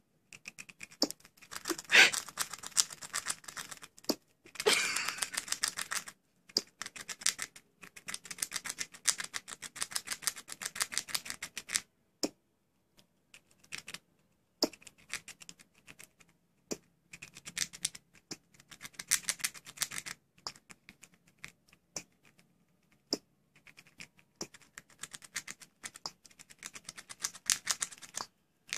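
Squirrel chewing hard food, fast crunching clicks in bursts with short pauses, broken now and then by a single sharp hiccup, the loudest about two seconds in.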